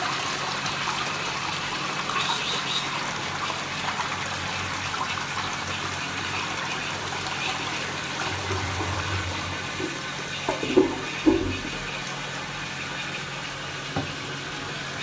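The end of a toilet flush: water swirling in the pan and the cistern refilling with a steady hiss that slowly fades. Two short loud knocks come a little past halfway, and a lighter knock near the end as the wooden seat lid is handled.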